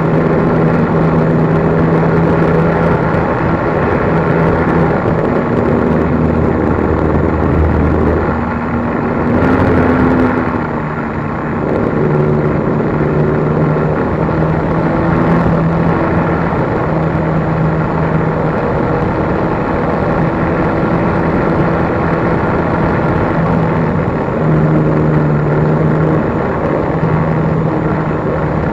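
RC plane's motor and propeller droning steadily in flight, heard from a camera mounted on the plane, over a rush of wind. The pitch shifts and the sound dips briefly about eight to eleven seconds in.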